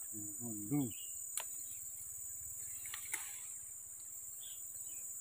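Steady high-pitched chorus of insects in tropical undergrowth, with a short low mumble from a man's voice under a second in. A few sharp clicks follow as fern stems are snapped off by hand.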